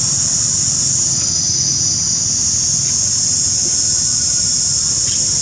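A steady, high-pitched chorus of insects droning without a break, over a low rumble.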